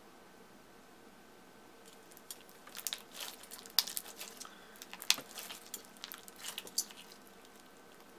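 Thick, stretchy orange slime with small white beads being squished and folded between the hands, making a run of sticky clicks and pops that starts about two seconds in and dies away near the end.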